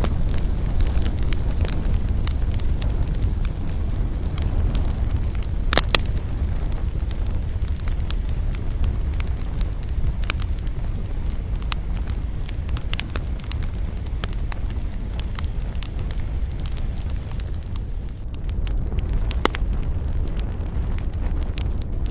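Campfire burning: wood crackling with frequent sharp pops over a steady low rumble of flame. One loud pop comes about six seconds in, and another near the end.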